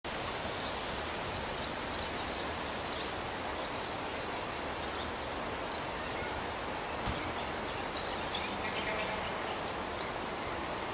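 Steady outdoor ambient hiss, with small birds giving short high chirps every second or so.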